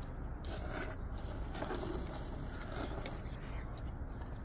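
People slurping and eating hot instant ramen noodles: a series of short, noisy slurps, with chopsticks scraping in bowls and the pan.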